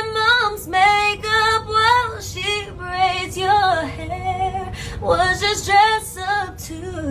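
A woman singing a song, one voice carrying the melody in short phrases.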